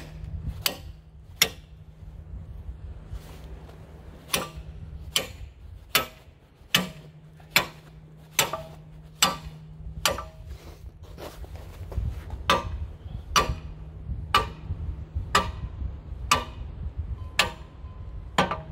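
Steady, evenly spaced metal-on-metal blows, about one a second, from a gib key puller being hammered to drive a rusted-in gib key out of the flywheel hub on a 1919 IHC Type M engine's crankshaft.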